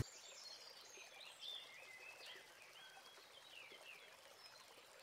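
Near silence: faint room tone with a few faint, high, short chirps in the background.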